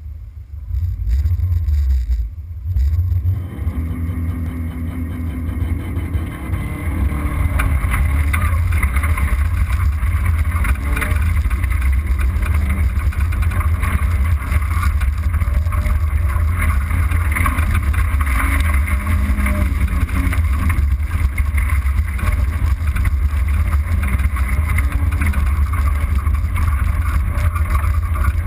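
Rallycross car driving hard on a loose dirt course, its engine running under load along with tyre and dirt noise. Heavy wind rumble covers a hood-mounted microphone. The sound jumps up about a second in and stays loud.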